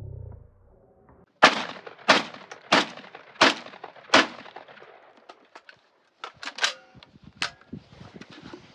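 AR-style 12-gauge semi-automatic shotgun fired five times in quick succession, about 0.7 s apart, each shot ringing briefly. A few lighter clicks and knocks follow.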